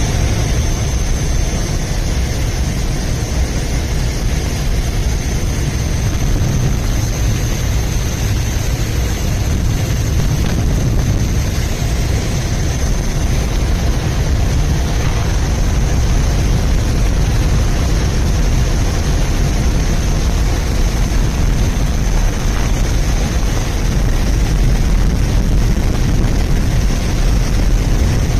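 Aircraft engines running steadily, heard from inside the cabin: a constant low rumble with a thin high whine over it.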